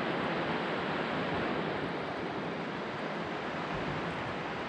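Ocean surf washing in steadily, an even rushing noise with no breaks.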